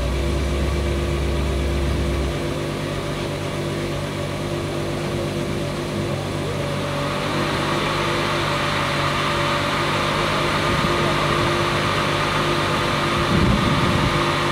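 Ferrari 599 SA Aperta's V12 engine idling steadily.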